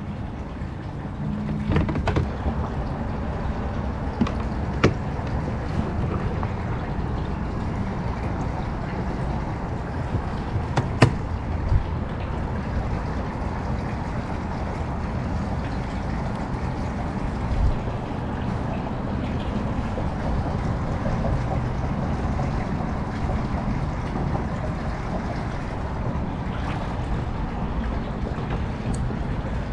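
A steady low rumbling noise with a few sharp clicks and knocks, like fishing gear being handled on a kayak.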